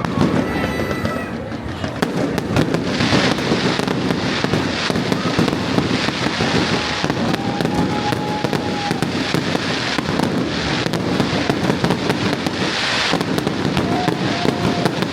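Fireworks going off in quick succession, a dense string of sharp bangs and crackles, with music playing underneath.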